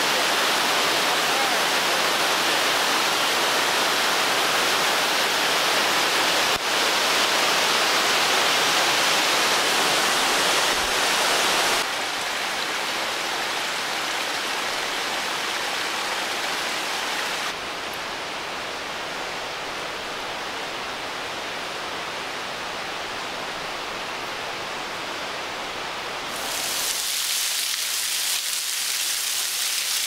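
Steady rush of a snowmelt waterfall cascading over rocks, shifting in level a few times. Near the end it gives way to a thinner hiss of water falling and spattering down like rain.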